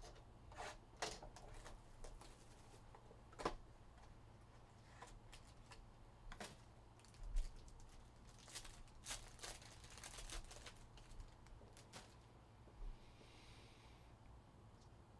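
Faint handling of a trading-card box and pack: scattered clicks of cardboard, then a cluster of crinkling and tearing from a clear plastic pack wrapper in the middle, and cards being slid and handled.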